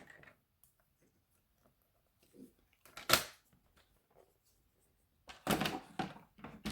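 Paper trimmer and white cardstock being handled and cut: a single sharp click about three seconds in, then a second or so of scraping, rustling paper noise near the end.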